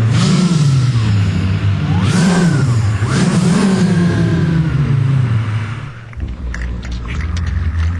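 Honda engine revving: its pitch climbs and falls twice, then winds down. About six seconds in it gives way to a lower rumble with scattered clicks.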